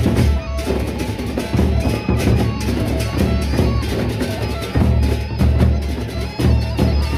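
Gendang beleq ensemble playing: large Sasak barrel drums beaten in a dense, driving rhythm with clashing hand cymbals and a few ringing held tones above.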